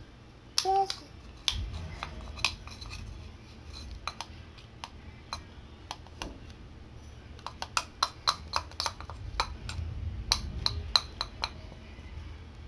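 Plastic toy spoon clicking and tapping in a small plastic toy pot as a toddler stirs: irregular sharp clicks, a few at first and then coming quickly in the second half.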